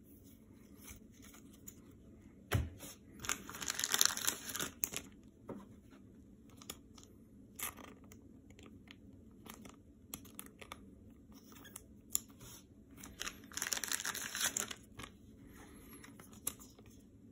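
Thin plastic crinkling and rustling in two bursts, about three and thirteen seconds in, with scattered light clicks and taps as baseball cards are handled and sleeved.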